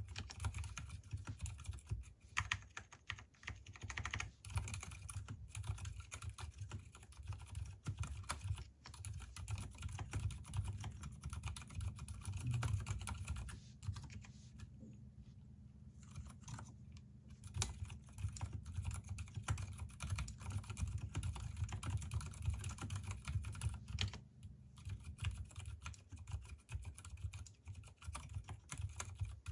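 Continuous typing on an Mstone Groove T mechanical keyboard with silicone dampening and Gateron silent brown switches: rapid, irregular keystrokes, with short pauses about halfway through and again near the end. The switches are unlubricated and the stabilizers are lubed.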